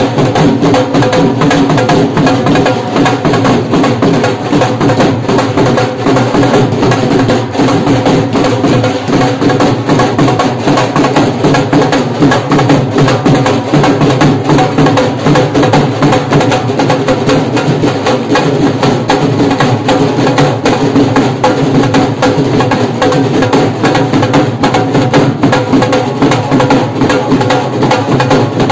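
Dhol drums beaten with sticks in a fast, dense, unbroken rhythm.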